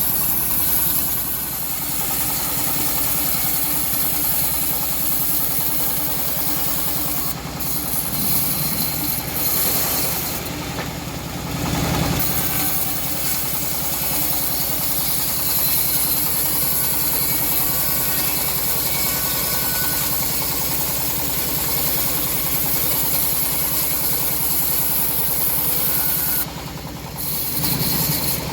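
Homemade bandsaw mill running steadily while ripping hard teak wood, a continuous mechanical drone with a short dip in level near the end.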